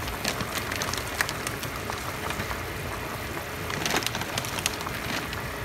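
A pot of seafood-boil broth at a rolling boil, bubbling and popping with many small crackles. There are some louder splashes about four seconds in as raw shrimp drop into the pot.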